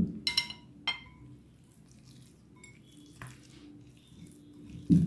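A metal spoon clinks twice against a ceramic bowl, each clink ringing briefly. After that, minced chicken filling is mixed by hand in the bowl, which makes only faint sounds.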